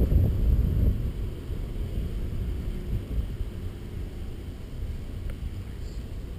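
Wind buffeting the microphone: a low rumble that is strongest in the first second, then eases to a steadier, softer rush.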